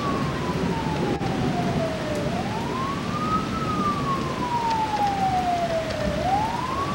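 A siren wailing: a single tone that climbs quickly, then slides slowly back down, about every four seconds, over steady background noise.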